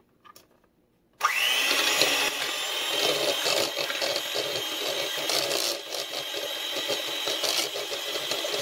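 Electric hand mixer switched on about a second in. Its motor spins up with a rising whine, then runs steadily while its two wire beaters whip a cream cheese, egg, sugar and flour filling in a mixing bowl.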